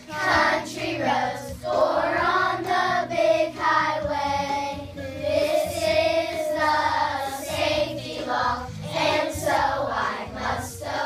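Children singing together as a group to a backing track.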